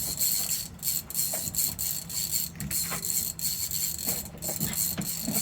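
Fishing reel clicking and ratcheting rapidly as a big fish pulls against the line, over a steady low hum.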